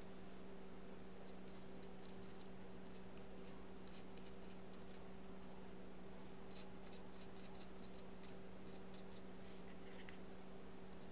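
Paintbrush stroking and dabbing gouache onto paper: a run of short, irregular scratchy strokes, over a steady low hum.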